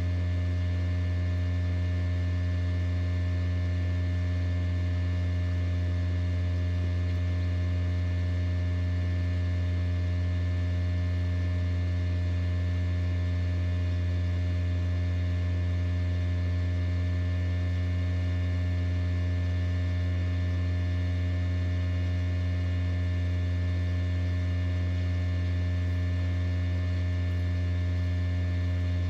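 Steady low hum of an egg incubator's motor or fan, running without change, with a stack of fixed higher overtones above the deep hum.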